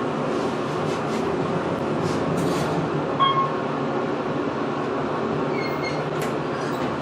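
Elevator car travelling down: a steady, rough rumble of the car in motion, which a rider calls terrible. A short tone sounds about three seconds in and another near six seconds.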